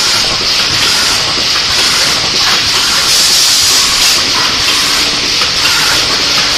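Automatic tube foil-sealing and capping machine running: a loud steady hiss with faint mechanical clicking.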